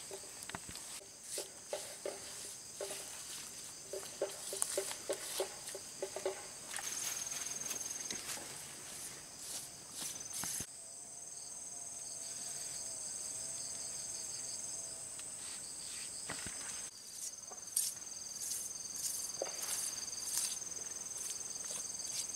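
Insects chirping in a steady high drone, with scattered light taps and scrapes of hands working wet mud and setting pebbles.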